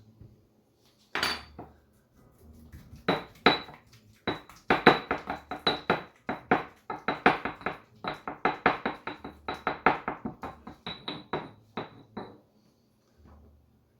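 Pestle pounding avocados in a mortar. There is one sharp knock about a second in, then a long run of steady strikes, about three a second, each with a faint clink, which stops near the end.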